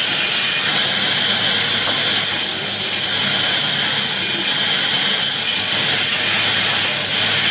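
Sawmill band saw cutting a slab off a timber: a steady loud hiss over an even low hum from the machine.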